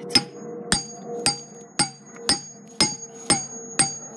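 Hammer striking a lava lamp's thick glass bottle in steady, evenly spaced blows, about two a second, each blow ringing briefly.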